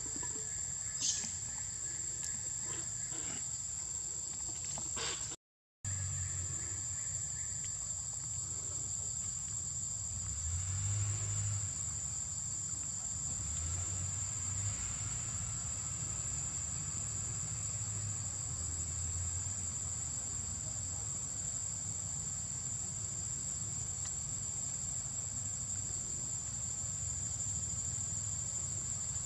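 Insect chorus making a steady, high-pitched drone without a break. A sharp click comes about a second in, and the sound drops out for about half a second about five seconds in.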